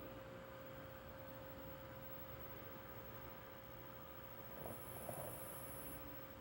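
Faint snoring breath of a deep sleeper under a steady electrical hum, with a short snort about five seconds in.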